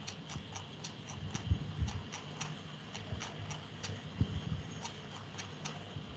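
Rapid, even ticking, about four ticks a second, over a faint steady hiss, with a few soft low thumps about a second and a half and four seconds in.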